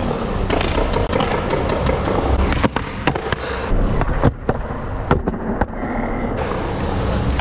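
Skateboard wheels rolling on concrete, with a string of sharp clacks and knocks from the board and trucks striking the ground.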